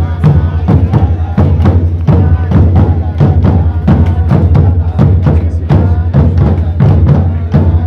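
Music with a steady, driving drum beat over a held low drone.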